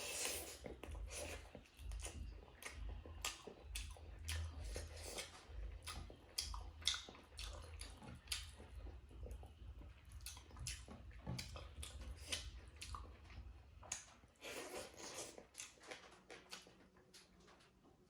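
Close-up wet mouth sounds of chewing large pieces of pork and rice: a steady run of sharp smacks and clicks, several a second.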